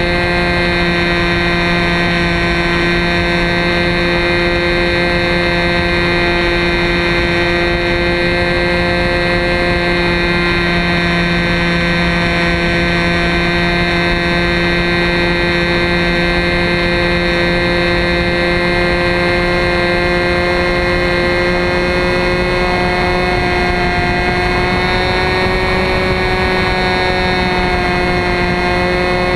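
Two-stroke glow engine of a radio-control Telemaster model plane running steadily at high throttle, a loud, even drone whose pitch rises slightly near the end.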